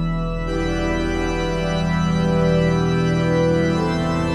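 Intro music of sustained organ chords, brightening about half a second in and shifting to a new chord near the end.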